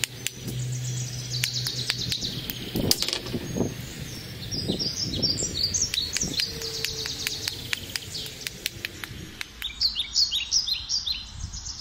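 Hammerstone striking a red quartzite cobble in irregular sharp stone-on-stone knocks, knapping flakes off to shape a chopping tool. A small bird keeps chirping in quick repeated phrases over it, strongest again near the end.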